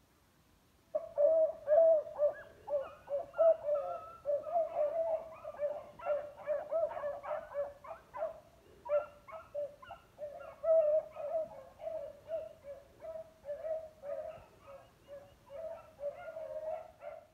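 Pack of beagles baying, starting about a second in: many short, overlapping bays repeated without a break. The hounds are giving tongue as they run a scent line together.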